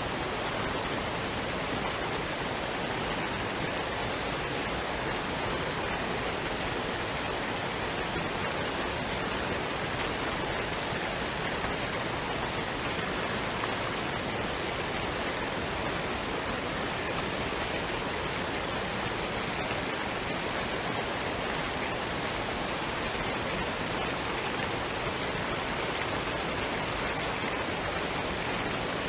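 Waterfall and stream water running in a steady, even rush that does not change.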